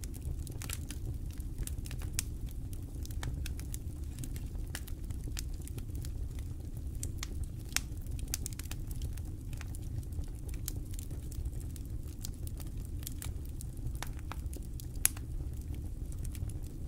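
Wood fire crackling: irregular sharp pops and snaps over a steady low rumble, with one louder pop a little before the end.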